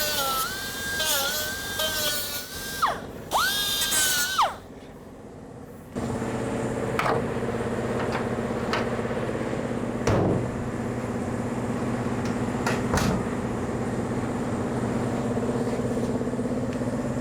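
High-speed rotary power tool trimming a widebody kit part: a high whine that dips in pitch under load twice and stops about four and a half seconds in. After a short lull a steady low mechanical hum runs on, with a few knocks.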